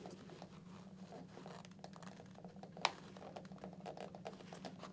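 Faint scratching and rustling of fingers pressing a Shoei GT-Air II helmet's interior pad and its plastic clips into place around the liner, with one sharp click a little under three seconds in.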